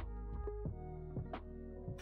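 Background music with held tones and a steady beat about every two-thirds of a second.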